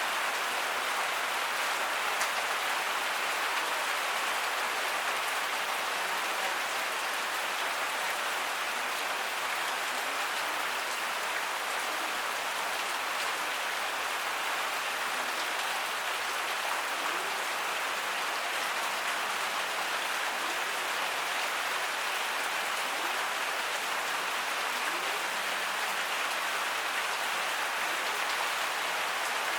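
Heavy rain falling steadily, an even hiss of drops on surfaces with no thunder.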